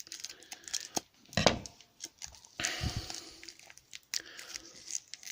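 Scattered clicks and rustling from hands digging a small toy figure out of a slime can full of thick slime, with a louder handling noise about a second and a half in.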